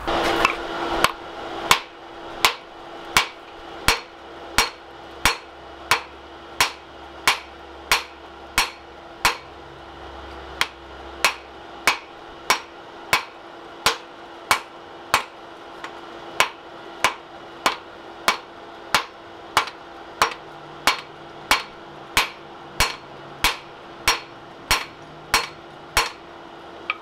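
Hand hammer striking a red-hot steel axe blank on an anvil in steady forging blows, about three strikes every two seconds, with a steady ring carrying under the blows.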